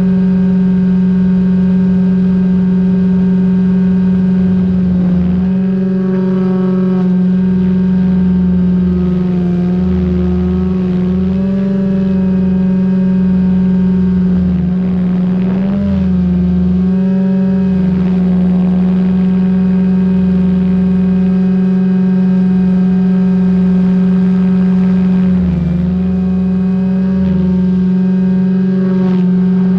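SAB Goblin 500 electric RC helicopter heard from its own tail boom: a loud, steady whine of the rotors and drive in flight. The pitch holds level apart from brief wobbles and dips as it manoeuvres, about halfway through and near the end, over on-and-off bursts of low rumble.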